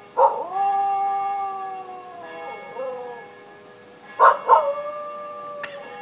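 A Welsh Terrier howls along with ringing church bells. A long howl starts just after the beginning and slides down in pitch near the middle. About four seconds in come two quick yelps that lead into a second, lower held howl, with the bells' steady tones sounding underneath.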